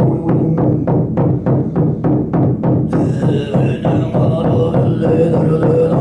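Tuvan throat singing, a steady low drone with a ringing overtone, over a large hide frame drum beaten with a beater at about four even strokes a second. About halfway in, a brighter, higher layer joins the voice.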